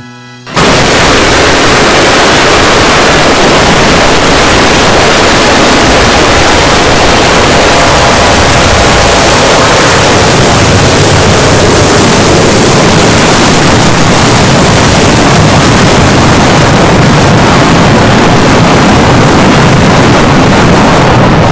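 Jumpscare sound effect: a brief buzzing tone, then about half a second in a sudden, extremely loud, heavily distorted blast of noise across all pitches. It holds steady for about twenty seconds and cuts off abruptly.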